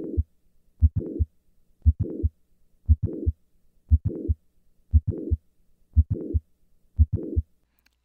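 Recorded heart sounds of mitral valve prolapse, about one beat a second. Each beat has the first heart sound, a click and a systolic murmur running up to the second heart sound. The patient is standing, which moves the click-murmur earlier in systole.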